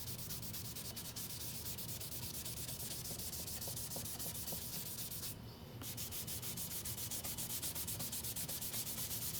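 Sandpaper rasping across dyed wood in quick, even strokes, with a short pause about five seconds in: the leather dye is being sanded back so the colour stays only in the figure.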